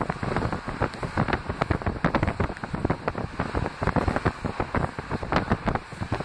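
Wind buffeting the microphone in rapid, uneven gusts over the running noise of a moving passenger train.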